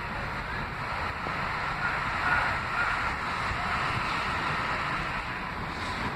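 A subway train running on the elevated tracks: a steady rumble and hiss that swells a couple of seconds in. Wind buffets the microphone throughout.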